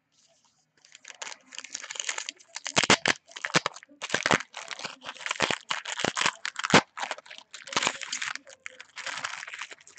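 Foil wrapper of a football trading-card pack being torn open and crinkled, starting about a second in, with many sharp crackles and snaps.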